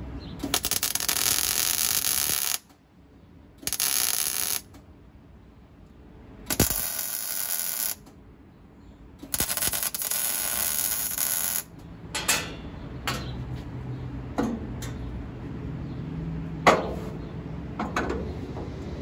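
MIG welder laying four short welds on steel framing, each a steady hiss that starts and stops sharply, the longest about two seconds. From about twelve seconds in, scattered metallic clinks and knocks of steel parts being handled.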